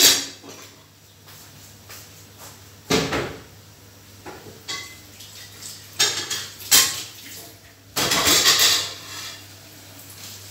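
Dishes, pots and cutlery clattering: a handful of separate knocks and clinks, with a longer rattle about eight seconds in, over a steady low hum.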